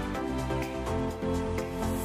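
Instrumental background music with a light, steady beat.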